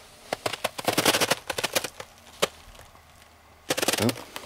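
Crunching and cracking of ice and crusted snow underfoot: quick clusters of sharp crunches, a short lull, then another burst near the end.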